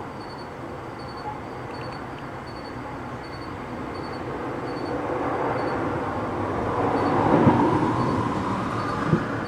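A passing vehicle: a steady rumble that swells to its loudest about seven and a half seconds in, then begins to ease. A short sharp knock comes just before the end.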